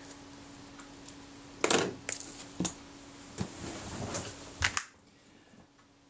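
A run of sharp clicks and light clinks, about seven, from small hard parts and tools being handled and set down on a workbench. The first is the loudest. A steady low hum runs underneath and cuts off about five seconds in.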